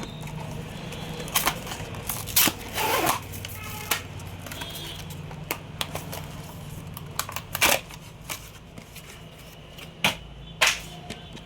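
Scattered sharp clicks and light taps from handling a small SSD and laptop parts, with a short rustle about three seconds in, over a steady low hum.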